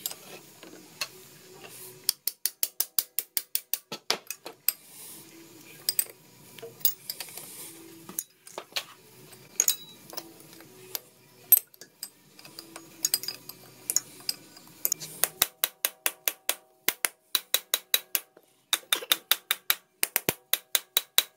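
A wrench working the bolts on the brake housing cover of a Case 430 tractor, loosening the stuck left rear brake assembly: runs of quick, sharp metallic clicks, several a second, broken by short pauses.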